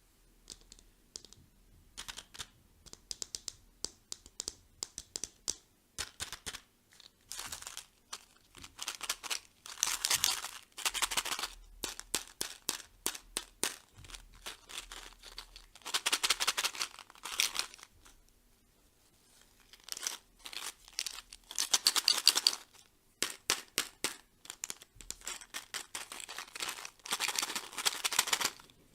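Candy packaging being crinkled and torn open by hand: many short crackles and taps, with four longer bursts of tearing and rustling about six seconds apart.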